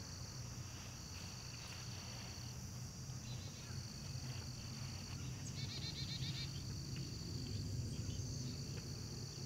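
Crickets chirping steadily in a high continuous drone, with a brief rapid run of bird chirps about six seconds in, over a low steady rumble.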